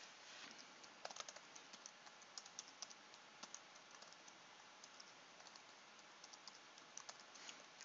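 Faint typing on a computer keyboard: irregular soft keystrokes over a faint steady hiss.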